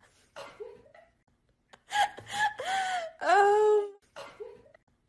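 A person laughing in short high-pitched bursts about two seconds in, ending in a longer, drawn-out squealing laugh.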